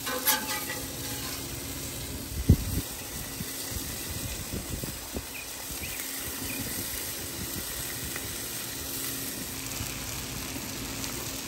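Hamburger patties on tortillas sizzling on a hot Blackstone flat-top griddle, a steady even hiss. A single sharp knock comes about two and a half seconds in.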